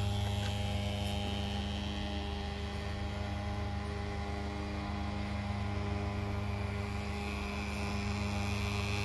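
Steady low mechanical drone of a running engine or motor, holding one pitch throughout. A faint higher whine comes in near the end.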